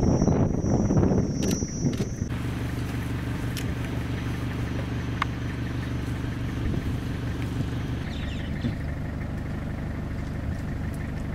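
A motor running steadily with a low, even hum. For the first two seconds a louder rushing noise lies over it, then cuts off abruptly.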